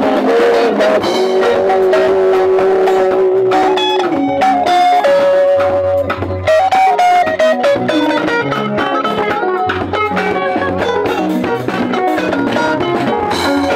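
A live band playing: guitar over a drum kit and a changing bass line, with long held melody notes.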